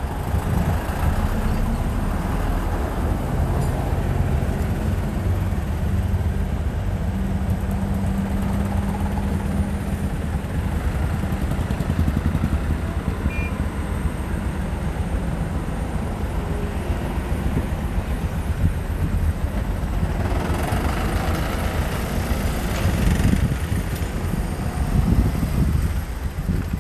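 Excavator's diesel engine running steadily, a low rumble with a steady hum, with a louder noisy stretch about twenty seconds in.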